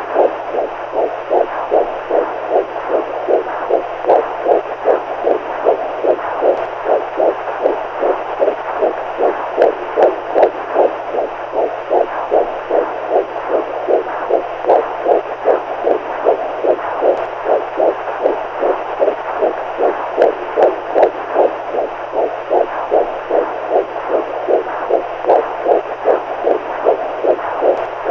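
Heartbeat sound: an even, steady rhythm of beats that never changes pace, over a constant hiss.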